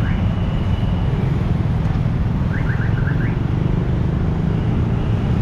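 A vehicle engine idling, heard as a loud steady low rumble, with a few faint short chirps about two and a half seconds in.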